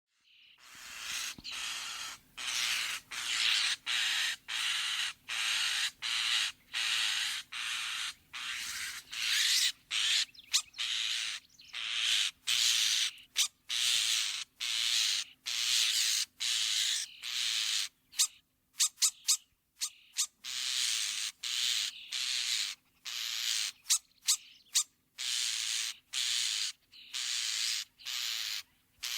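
European starling giving a long series of harsh, hissing rasps, one after another about once a second, with a few short sharp clicks about two-thirds of the way through.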